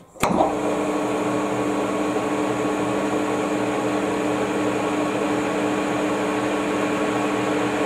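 Metal lathe spindle running at a steady speed, turning an ER32 collet chuck: an even mechanical hum with a few held tones. It cuts in abruptly with a click just after the start.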